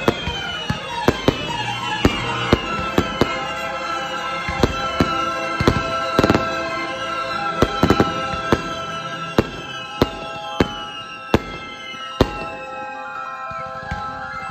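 Fireworks shells bursting in about twenty sharp, irregular bangs, over music with long held notes.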